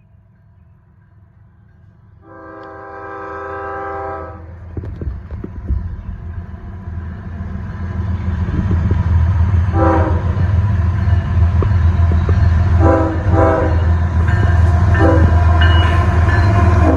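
A freight train's diesel locomotive horn sounds one long chord blast of about two seconds. Then the deep rumble of the approaching GE diesel locomotives builds and grows loud. Several short horn notes come over it in the second half.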